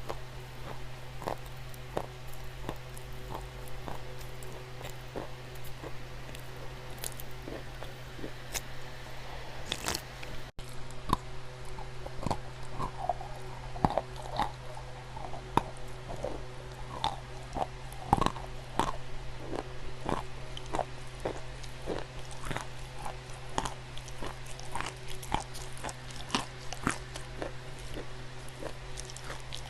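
Dry clay crunching and crackling in many quick, irregular crunches. There is a brief break about ten seconds in, after which the crunching carries on.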